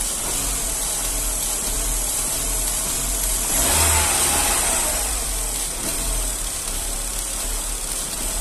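Chevrolet Astra's four-cylinder Flexpower engine idling smoothly, with one brief rev of the throttle about four seconds in. The idle is even and free of misfire now that a faulty fuel injector has been replaced.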